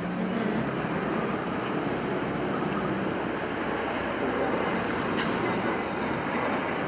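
Heavy diesel road-repair machinery running steadily: the engine drone of a dump truck and an asphalt milling machine working the street surface, with a low hum under even noise.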